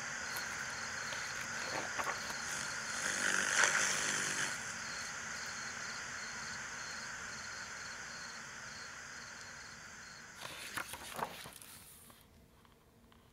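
Crickets chirring steadily with a pulsing trill, fading over several seconds and stopping near the end. A few short paper rustles and clicks of book pages being turned.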